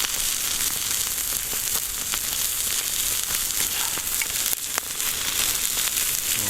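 Beef steak sizzling hard on a thick outdoor iron griddle plate (WOOPs Iron MULTI) over a campfire: a steady frying hiss with scattered sharp pops.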